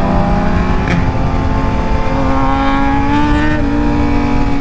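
Sport motorcycle engine running at moderate, fairly steady revs while riding, its pitch climbing a little as the throttle opens about two seconds in, over low wind and road rumble.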